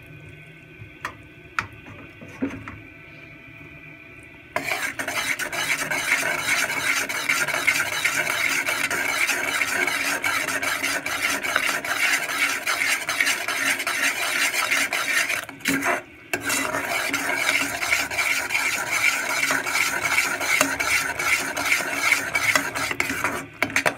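A metal spoon stirs and scrapes around an aluminium saucepan of thick, bubbling jaggery syrup near the end of its cooking, a rapid rasping. After a few faint clicks, the rasping starts about four and a half seconds in and breaks off briefly about two-thirds of the way through.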